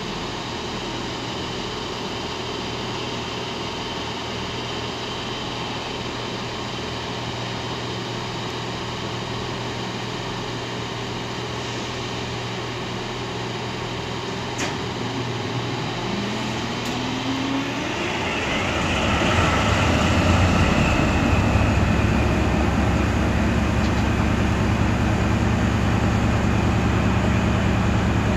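Diesel locomotive's engine and cooling equipment running steadily at a standstill. About two-thirds of the way through a whine rises in pitch as the engine and fans speed up, and the locomotive runs noticeably louder from then on.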